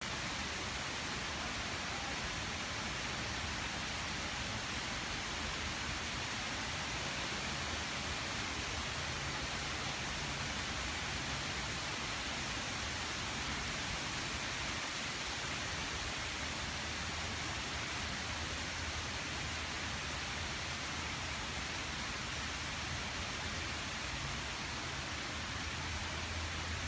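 Steady rain, an even hiss that does not change, with a low hum that swells and fades at times.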